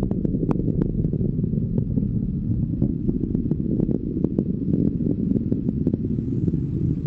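Rocket engines rumbling steadily during ascent, with a scatter of sharp crackles over the deep rumble.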